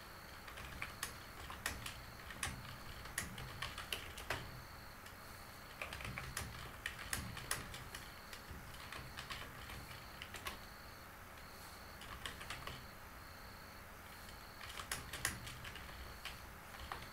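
Typing on a computer keyboard: several short runs of keystrokes with brief pauses between them, as one chat line after another is typed.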